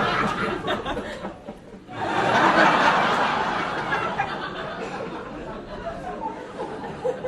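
Comedy club audience of about 200 people laughing. One wave of laughter fades out in the first second or so; a second wave swells up about two seconds in and slowly dies away.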